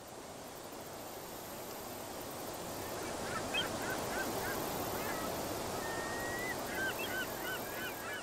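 Birds calling in two quick runs of short, hooked calls about three and seven seconds in, with one longer whistled note between them, over a steady hiss.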